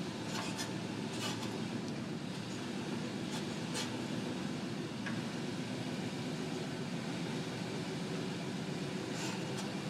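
Truck being driven slowly, heard from inside the cab: a steady low engine and road hum, with a few faint clicks.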